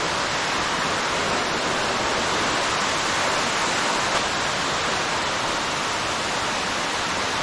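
Steady, even rush of falling water from an underground waterfall.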